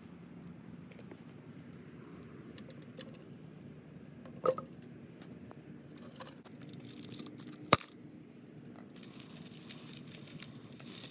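Light metallic clinking and jingling of steel chainmail rings being handled, with scattered small clicks and two sharp taps, the second the louder, about two thirds of the way in.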